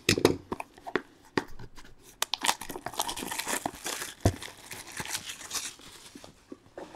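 A trading card pack wrapper being torn open and crinkled: a few sharp crackles, then a denser crinkling rustle for a few seconds in the middle.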